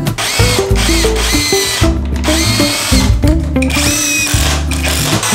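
Worx cordless drill boring pilot and countersink holes into a treated-timber base frame, in several short whining bursts, over background music.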